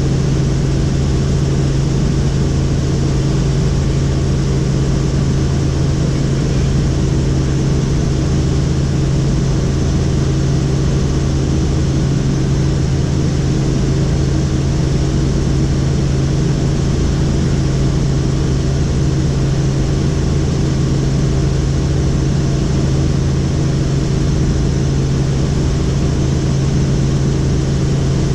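Helicopter in flight: the steady, loud drone of its engine and rotors, a strong low hum with a hiss over it, unchanging throughout.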